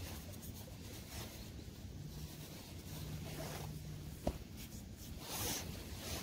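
Scratchy rubbing and rustling of soil being handled around a freshly dug-up coin. A low steady hum runs for about two seconds in the middle, and a single sharp click comes about four seconds in.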